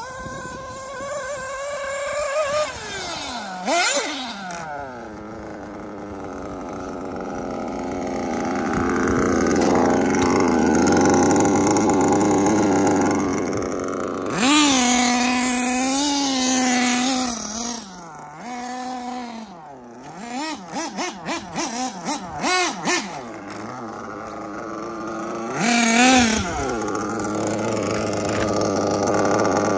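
Kyosho MP10 buggy's small two-stroke FTX nitro engine running hard as it is driven, its pitch rising and falling with the throttle. It holds high revs for a few seconds midway, then gives a quick run of short throttle blips, followed by one more burst near the end.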